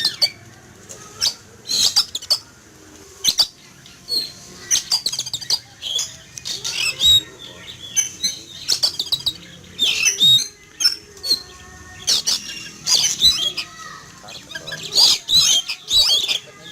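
Oriental magpie-robin (kacer) singing loudly and without pause: rapid bursts of whistled and harsh, scratchy notes, about one burst every second or so.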